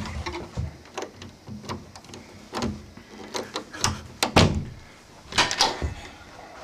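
A door's lock and handle being worked by hand: a run of clicks, rattles and knocks, the loudest a little past the middle and again about a second later.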